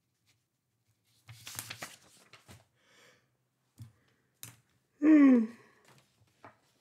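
Paper rustling and handling with a few light clicks, then a short, loud voiced yawn that falls in pitch, about five seconds in.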